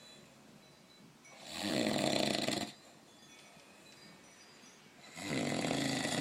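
Elderly man snoring in his sleep: two snores, each lasting about a second and about three and a half seconds apart, with quiet between them.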